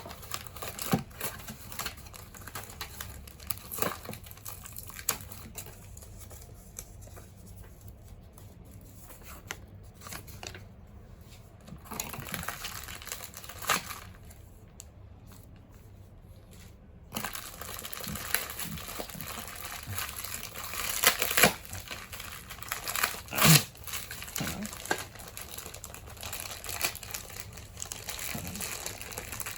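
Toy packaging being handled, crinkled and torn open by hand, with scattered sharp clicks and taps. It is sparse and quieter for a stretch partway through, then busier and louder toward the end.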